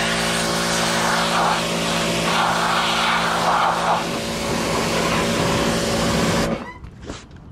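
Pressure washer running, a steady motor hum under the hiss of the water jet spraying the mower; the sound cuts off suddenly about six and a half seconds in.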